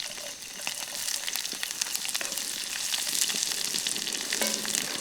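Hot oil in a pan sizzling and crackling with many small pops as freshly added green chillies and onions fry among spluttering mustard and cumin seeds. The sizzle picks up about half a second in.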